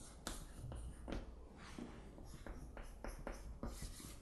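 Chalk writing on a chalkboard: a faint series of short scratchy strokes as a word is written out and underlined.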